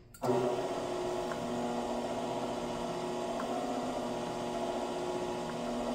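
Power hammer starting up about a quarter second in and running slowly with a steady electric hum, with three faint ticks about two seconds apart as its dies strike a raised lump in an aluminum panel to shrink it.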